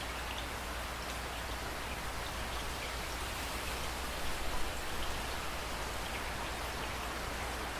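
Steady rain falling, an even hiss of drops, with a few louder splashes about halfway through.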